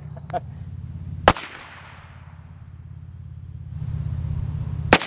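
Two single gunshots from a .22 rimfire single-action revolver, about 1.3 s in and near the end, each a sharp crack with a fading echo, over a low steady hum.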